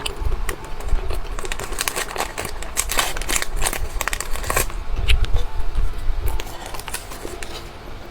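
Crinkling and tearing of a plastic candy wrapper handled close to the microphone, a dense run of crackles throughout.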